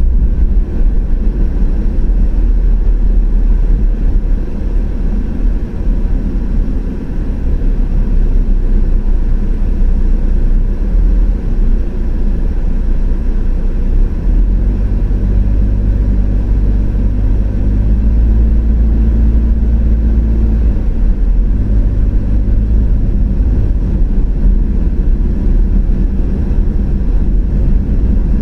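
Car driving along a road: a loud, steady low rumble of tyre and engine noise, with a low hum rising above it for several seconds around the middle.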